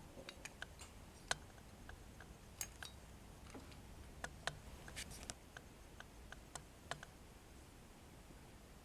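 Die-cast metal toy truck being handled: faint, irregular light clicks and taps.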